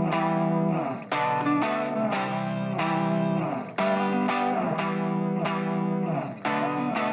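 Instrumental music led by a guitar with effects and distortion, its notes struck at a steady pace over a held low note.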